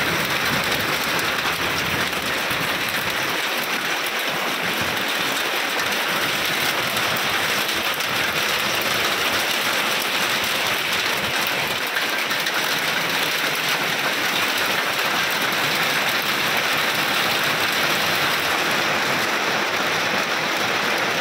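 Heavy rain mixed with small hailstones falling steadily on concrete, bricks and open ground: a dense, even hiss that holds level throughout.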